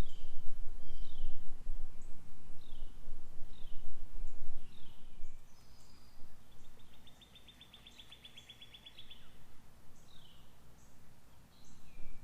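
Songbirds calling outdoors: short downward-slurred chirps repeated on and off, with a rapid trill lasting a couple of seconds in the middle. A low rumble underlies the first few seconds and then fades.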